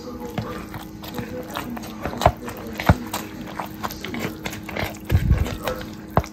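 A metal fork clicking, scraping and knocking against a bowl as mashed sweet potato is mixed with tapioca starch and shredded coconut: irregular taps, a few sharp louder knocks and a duller thump a little after halfway, over a steady low hum.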